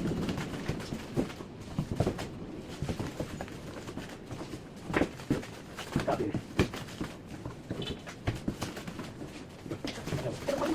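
Irregular clicks and knocks of metal paintless dent repair rods being handled and packed, with the loudest knocks about five and six and a half seconds in.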